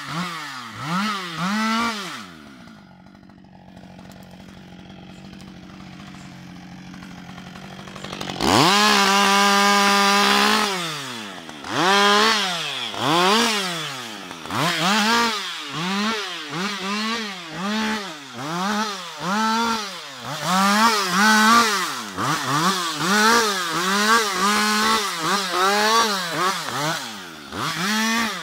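Husqvarna 560 XP two-stroke chainsaw limbing a felled tree. It revs in short bursts, drops to idle for about six seconds, then runs at steady full throttle for about two seconds. After that it revs up and back down roughly once a second as branches are cut off.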